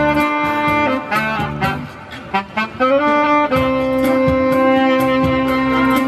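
Tenor saxophone playing a slow melody live over a band accompaniment with a steady beat: a phrase of changing notes, then one long held note from about halfway through.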